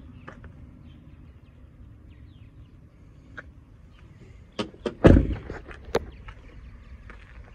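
Passenger door of a 2009 Ford F-150 regular cab pickup being shut: a couple of light clicks, then one loud thump about five seconds in, and a sharp click just after.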